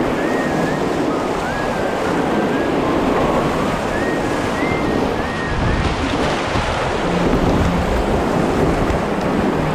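Loud, steady rush of a shallow, rocky whitewater rapid, heard close up from a kayak running it.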